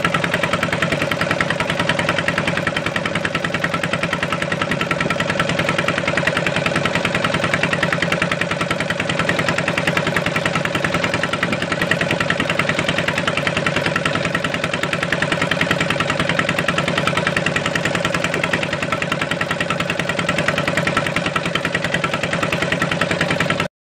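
Small wooden fishing boat's engine running steadily under way, with a fast, even chugging.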